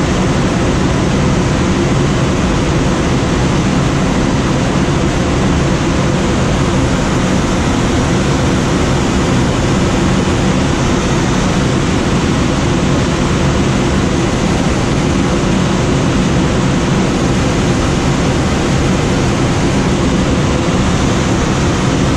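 Steady rush of wind noise inside a glider's cockpit, unbroken and even throughout.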